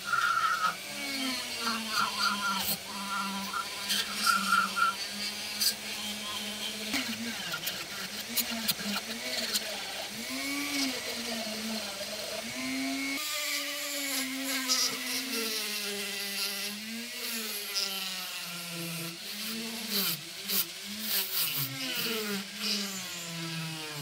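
Handheld rotary tool spinning a small green abrasive wheel against the steel parts of a pocket knife, polishing off rust. The motor's whine wavers up and down as it is pressed against the metal, over a gritty scratching hiss, and the sound changes about halfway through.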